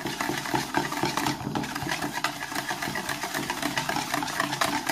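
A wire whisk beating egg yolk, yogurt and flour in a plastic bowl: a rapid, steady clatter of the wires against the bowl.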